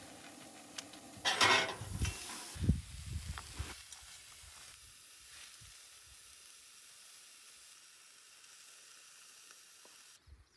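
Chicken and vegetables sizzling in a frying pan on a propane camp stove, a steady hiss. A few loud knocks from handling come in the first three seconds.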